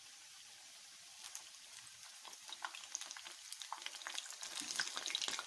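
Banana-coconut dough patties frying in hot sunflower oil in a pan: a soft hiss, then sizzling crackles and pops that start about a second in and grow denser and louder toward the end.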